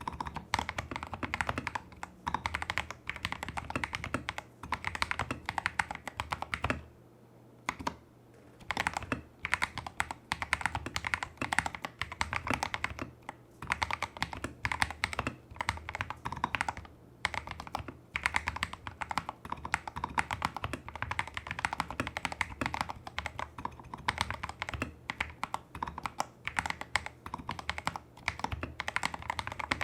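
Typing on a custom Tester68 mechanical keyboard with lubed Holy Panda clone tactile switches, taped PCB, modded stabilizers and XDA-profile keycaps: a steady run of fast keystrokes, with a short pause about seven seconds in.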